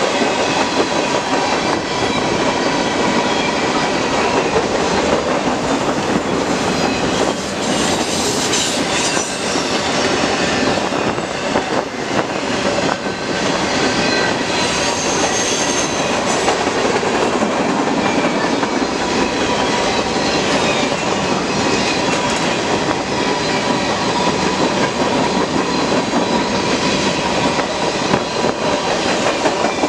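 Freight train cars, covered hoppers among them, rolling past close by: a steady, loud rumble and clatter of steel wheels on the rails, with a faint thin squeal of the wheels running under it.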